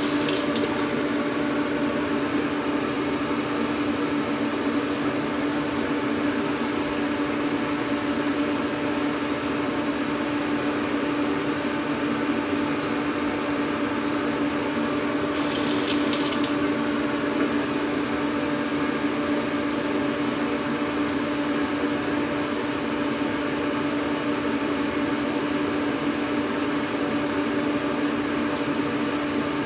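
Gold Dollar 66 straight razor scraping through lathered stubble in short strokes, the two loudest scrapes at the start and about halfway through. Under it a steady rushing hum.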